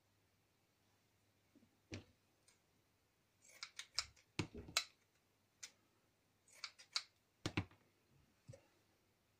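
Scissors snipping and clicking in two short clusters, with a few separate light taps, as small strips of fabric are cut and handled on a cutting mat.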